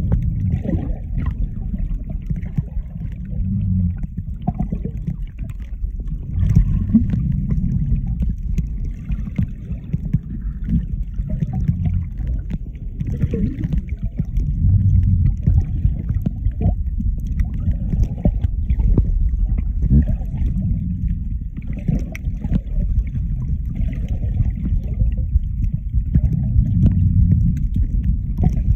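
Muffled low rumble of water moving over a phone's microphone held underwater, swelling every few seconds, with faint scattered clicks.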